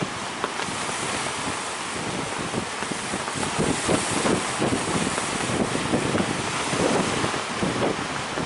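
Big sea waves breaking in surf, with wind buffeting the microphone; the surf swells louder around four seconds in.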